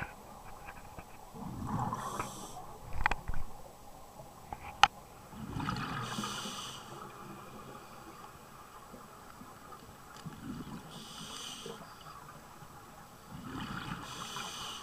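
Scuba diver breathing underwater through a regulator: a low bubbling rush and a hiss, repeating about every four to five seconds. A couple of knocks come about three seconds in, and a single sharp click, the loudest sound, just before five seconds.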